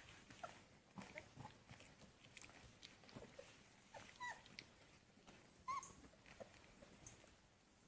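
Young beagle puppies whimpering: a few short, high squeaks scattered through, with faint soft taps in between.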